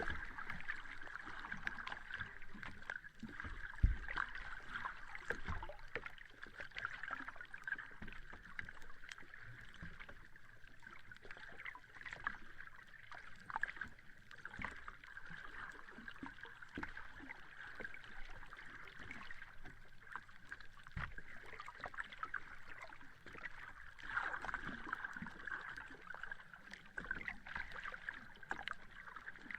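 Sea water washing and lapping on a beach: a steady fizzing wash full of small crackles, with scattered low thumps and one sharp low thump about four seconds in.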